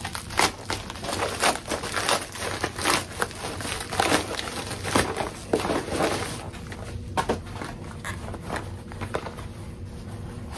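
Hands opening a beauty subscription box and handling its paper and packaging: busy irregular rustling and crinkling for the first six seconds or so, then sparser handling noises.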